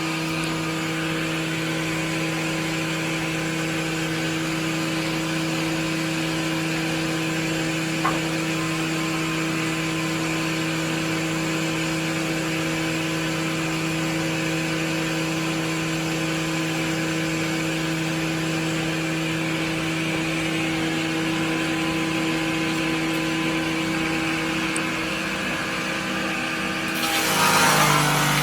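A machine running with a steady hum. It gets louder and rougher, and its pitch drops, near the end.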